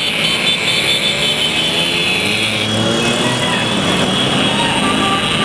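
A procession of Vespa scooters riding past, many small engines running together as a continuous drone, their pitches sliding up and down as each one passes.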